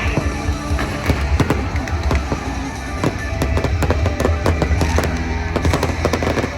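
Fireworks finale: a rapid, dense run of bangs and crackles over loud show music with a heavy, steady bass.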